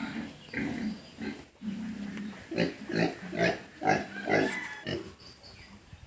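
Domestic pigs grunting in a pen: a run of short grunts, one after another, loudest in the middle.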